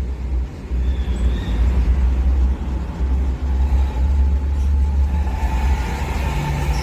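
Heavy vehicle engine rumbling close by, with a steady hum coming in about five seconds in.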